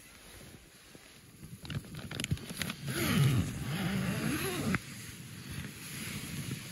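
Tent door zipper being pulled open in one long stroke, a rasping buzz whose pitch rises and falls with the speed of the pull and stops abruptly. Rustling and clicks of the tent fabric and zipper pull come before it.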